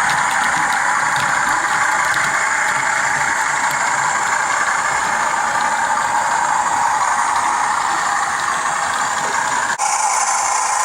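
Bachmann Class 40 model locomotive's TTS sound decoder playing a steady diesel engine sound through its standard 8-ohm speaker as the model runs. The sound is strongest in the middle and thin in the bass. Near the end it drops out for an instant and comes back brighter.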